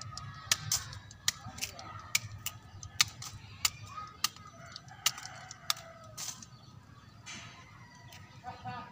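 A rooster crowing in the background, with about a dozen sharp, irregular clicks from close handling of the papaya graft over the first six seconds or so.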